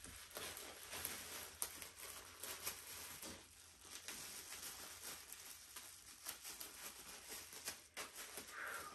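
Thin clear plastic bag crinkling and rustling in the hands as it is wrapped around a small plastic bottle, with many small irregular crackles.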